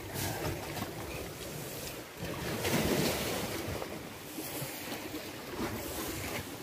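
Ocean surf washing in, swelling to its loudest about three seconds in, with wind buffeting the microphone.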